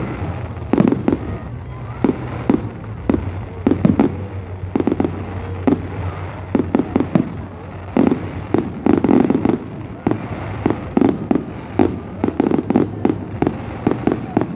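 Fireworks going off in quick, irregular succession: sharp bangs and crackling pops, at times bunched into rapid clusters.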